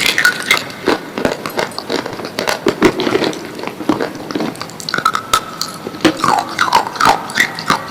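Slate pencils being bitten and chewed: irregular, sharp crunching and cracking, several snaps a second, with a few short squeaky pitched sounds partway through.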